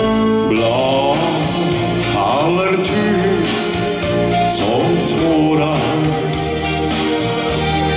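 Instrumental intro of a ballad: a wavering lead melody over sustained chords, bass and a steady beat.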